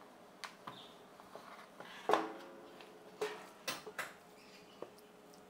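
Kitchen handling sounds: several light knocks and clinks of a stainless steel bowl and utensils being moved. The loudest comes about two seconds in and rings briefly, with another ringing clink a second later.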